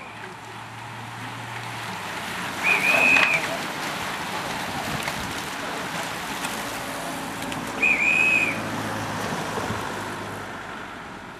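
A whistle blown in two short, shrill blasts about five seconds apart, over the broad rushing noise of a bunch of road-racing cyclists riding past, which swells and then fades.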